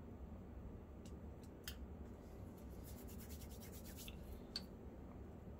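Faint clicks and taps of small hobby tools, a paintbrush and tweezers, being handled on a workbench, with a quick run of fine ticks a little past halfway, over a low steady hum.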